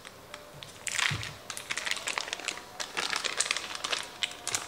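Paper wrappers being peeled off sticks of butter, crinkling in quick, irregular crackles from about a second in.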